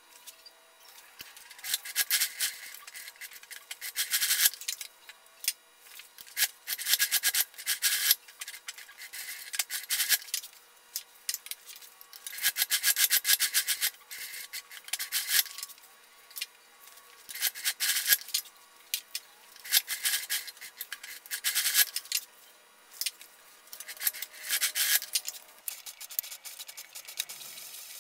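Juki industrial flatbed sewing machine stitching leather in short runs of about a second each, stopping and starting about ten times, each run a fast patter of needle strokes.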